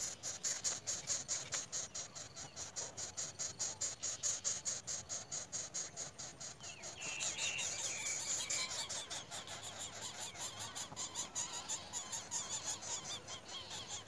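A rapid, steady, high-pitched pulsing throughout, with a short burst of thin squealing calls about seven seconds in, typical of greater coucal nestlings begging as the parent feeds them at the nest.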